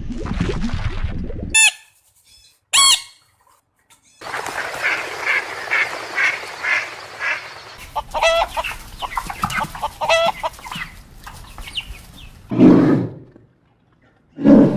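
Domestic fowl calling in a string of short separate clips: a couple of high calls, then a fast run of repeated clucks, then longer pitched calls. A loud low sound comes near the end.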